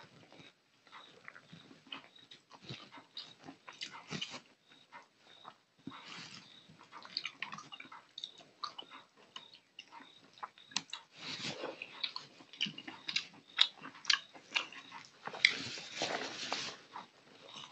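Close-miked eating by hand: fingers working wet rice and curry on the plate and wet, smacking chewing, in many short clicks and smacks. It grows louder around the middle and again near the end as a handful goes into the mouth.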